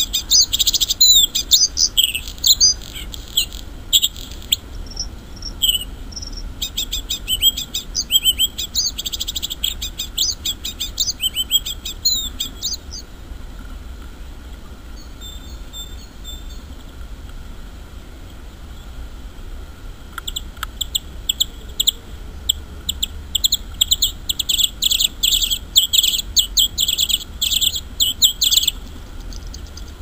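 Male bluethroat singing: fast runs of high, ringing notes and trills in long phrases, breaking off for several seconds in the middle with only a few faint notes, then starting again.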